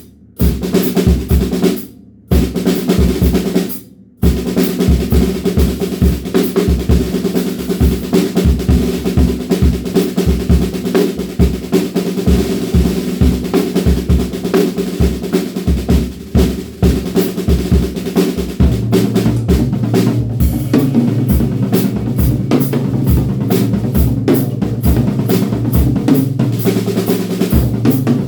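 DW Frequent Flyer drum kit played in a rock groove, bass drum and a fat, muffled snare, its wires slightly loosened. Short stops come about two and four seconds in, and a deeper drum tone rings along under the beat through the second half.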